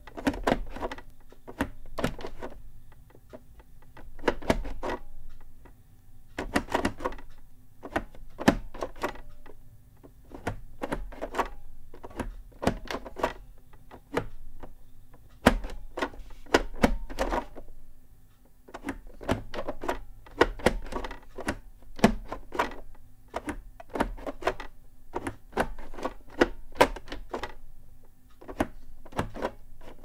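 Orbitouch keyless keyboard being typed on: its two domes are slid around by hand, making irregular clusters of sharp clicks and knocks every second or two.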